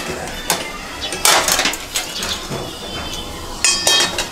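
Stainless steel kitchen utensils clinking and clattering: a few sharp knocks, a short clatter of steel bowls and spoons, then a bright ringing clink near the end.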